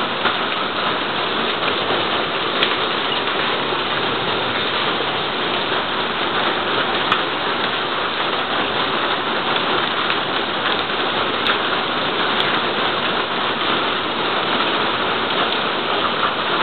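Heavy downpour: a steady, dense rush of rain hitting the ground and paving, with a few isolated sharp ticks.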